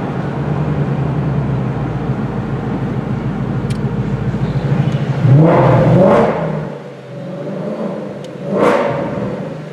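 Ford Mustang GT's supercharged V8 running steadily under way, then accelerating hard about five seconds in with the pitch rising, easing off, and surging briefly once more near the end.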